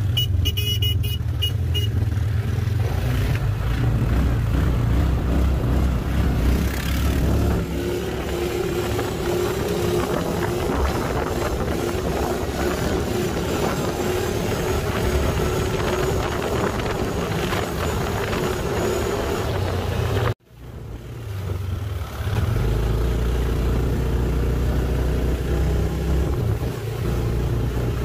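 Engine of a small off-road vehicle running steadily while riding. The sound breaks off for a moment about twenty seconds in.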